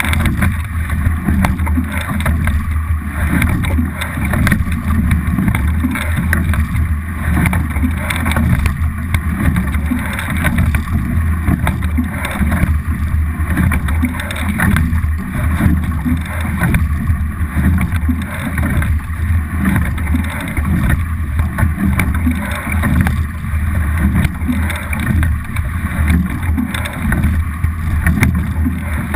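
Water rushing along the hull of a racing double scull under way, with wind rumbling on the boat-mounted camera's microphone; the noise swells roughly every two seconds with the rowing strokes.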